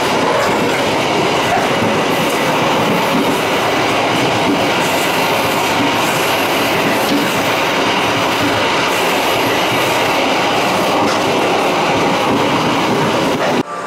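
Economy-class passenger train running at speed through a station, heard from inside a coach: a steady, loud rumble and rattle of the wheels on the rails. It cuts off suddenly near the end.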